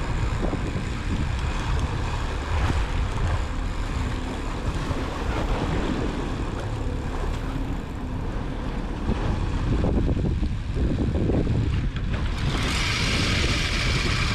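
Boat running at sea, with engine rumble and wind and water noise. About twelve seconds in, a louder, higher hiss comes in and holds.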